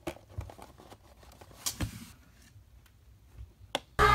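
Faint rustling and a few sharp clicks of fingers handling a cardboard Funko Pop box. Loud music starts suddenly near the very end.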